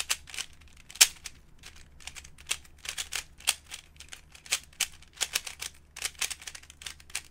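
A Rubik's Cube being scrambled by hand: quick bursts of plastic clicks as its layers are turned, several a second with short pauses between flurries.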